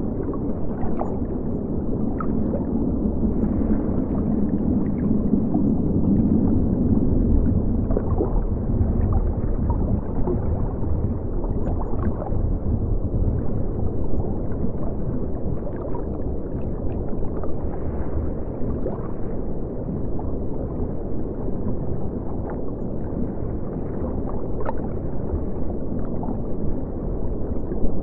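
Underwater ambience: a steady, muffled low rumble with scattered short bubble pops and gurgles.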